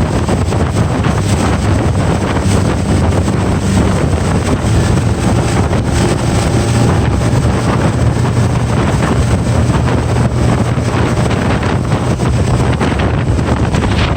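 Heavy wind buffeting the microphone aboard a Hurricane FD 226F deck boat under way, over a steady low drone from its outboard motor and the rush of water.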